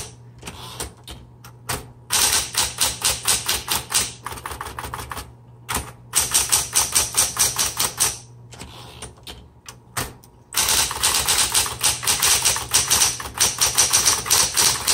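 1970s Smith Corona Coronet Electric 12 electric typewriter being typed on in quick runs of powered type-bar strikes, about eight to ten a second, with short pauses between runs. Under the strikes is the steady low hum of its running motor.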